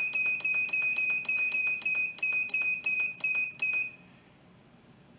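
Electric pressure cooker's control panel beeping rapidly, about five short high beeps a second, as the pressure-cook time is stepped up. The beeps stop about four seconds in.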